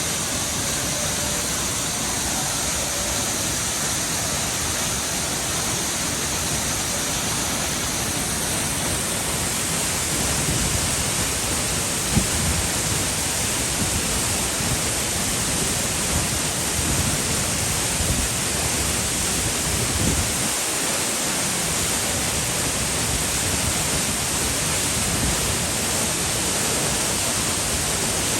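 Waterfall: a steady, unbroken rush of falling water, with a few brief low bumps partway through.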